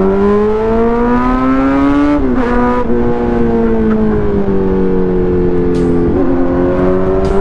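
Loud superbike engine under acceleration: the revs climb for about two seconds, drop sharply at a gear change, hold and ease slowly down, then climb again near the end.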